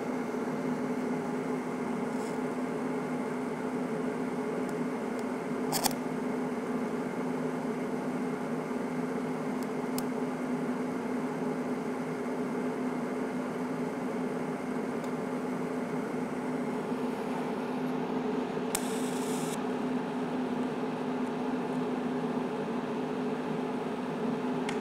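TIG welding arc from an Everlast PowerTIG 250EX, set at about 150 amps with pure argon shielding, running continuously on steel with a steady, even hum.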